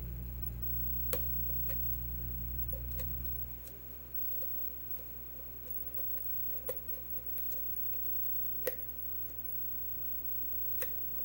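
Faint, scattered metallic clicks of a lock pick and tension wrench working the pins inside an ABUS 80/45 padlock during single-pin picking, a pin overset by too little tension. The loudest click comes about two-thirds of the way in. A steady low hum in the background stops about a third of the way in.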